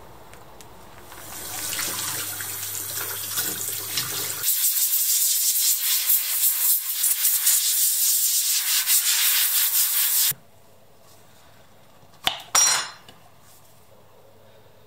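Scratchy rubbing on the hot-oxide blackened steel blade. It comes in two stretches, the second higher and hissier, and stops suddenly. Two quick sharp clicks follow near the end.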